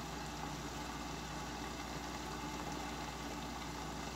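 Covered frying pan of chicken and broccoli simmering under its glass lid: a steady, muffled hiss with a low hum beneath it.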